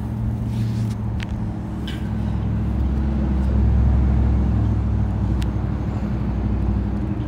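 Steady low rumble of a running vehicle, swelling slightly midway, with a few faint clicks.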